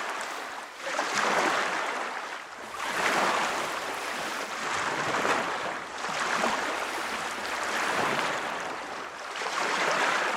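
Waves washing in with gusting wind, a rushing noise that swells and eases about every two seconds.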